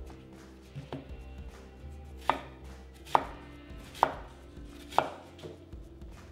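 Chef's knife slicing through an onion on a wooden butcher-block cutting board: sharp knocks of the blade meeting the board about once a second, with a few lighter taps between.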